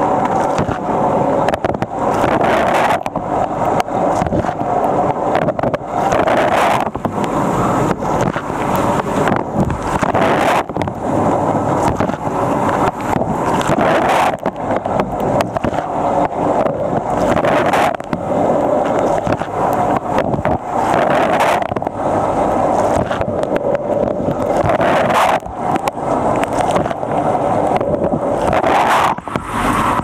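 Fisher & Paykel Nautilus dishwasher mid-wash, heard from inside the tub through a waterproof camera's housing: a loud, continuous rush of water jets pelting the camera, with rapid irregular knocks from the spray.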